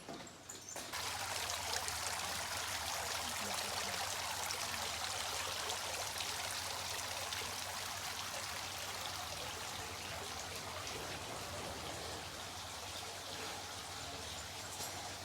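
Steady sound of running water, starting suddenly about a second in and easing slightly toward the end.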